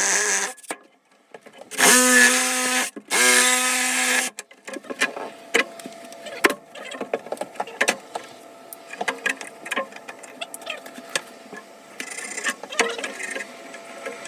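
Two short steady whirs, each about a second long, then many light clicks and taps of tools and metal parts being handled during shower valve work.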